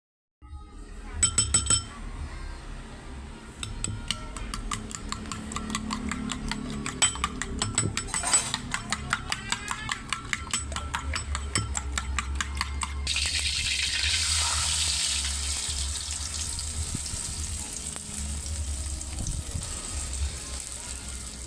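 Utensil clinking quickly and rhythmically against a bowl as eggs are beaten. About thirteen seconds in, this gives way suddenly to a steady sizzle as the egg mixture fries in hot oil in a pan.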